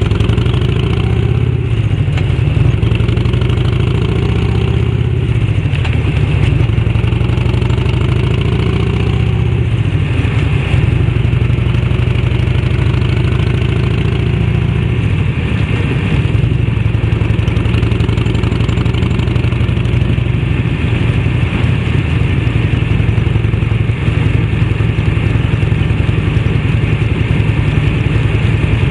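1991 Harley-Davidson Electra Glide sidecar rig's 1340 cc Evolution V-twin running at road speed through an aftermarket fish-tail silencer. The engine note rises and falls over the first ten seconds, then settles into steady cruising.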